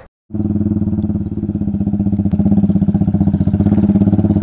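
Motorcycle engine pulling up a steep dirt slope under throttle, its exhaust beating in a rapid, even rhythm and getting louder over the first couple of seconds.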